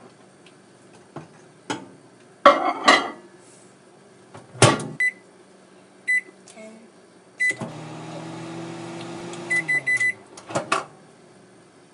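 Countertop microwave oven: clunks as the plate goes in and the door is shut, a few single keypad beeps, then the oven runs with a steady hum for about two and a half seconds. A quick run of beeps comes next, the hum winds down in pitch, and one more clunk follows near the end.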